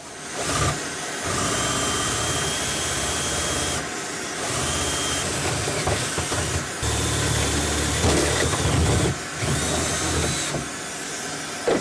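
Power drill running in several spells, starting and stopping, as two holes are drilled for the diesel heater's mounting.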